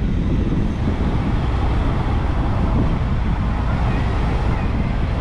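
Car driving slowly along a narrow lane: a steady low engine and road rumble.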